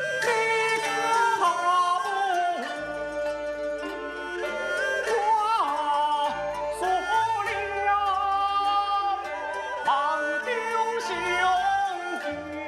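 Gezai opera accompaniment music: a sliding, ornamented melody over a low bass line that moves to a new note every second or two.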